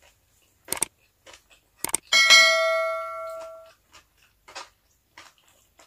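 A single bright bell-like ding starts sharply about two seconds in and fades away over about a second and a half, among a few small clicks from eating.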